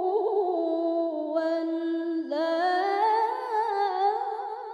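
A woman's voice in melodic Quranic recitation (tilawah), drawing out the last word of the phrase in a long, ornamented melisma. The pitch climbs about halfway through.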